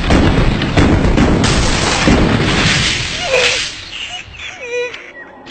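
Cartoon sound effects of loud, continuous booming and rumbling, with a few sharp impacts in the first second and a half, dying away about three and a half seconds in. Then a faint, quavering whimper of a voice.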